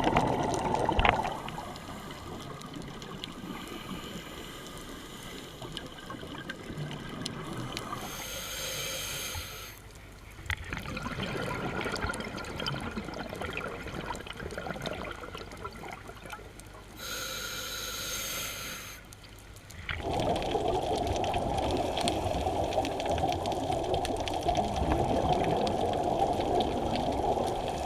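Underwater sound of a scuba diver breathing through a regulator: two short hissing breaths, then a louder rush of exhaled bubbles from about two-thirds of the way in.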